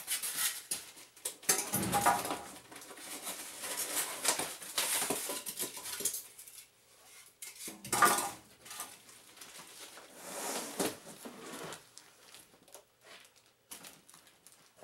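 Unpacking noises from a cardboard box: foam packing and plastic rustling and scraping, with clattering knocks. Two heavier thumps come about two and eight seconds in, then quieter handling.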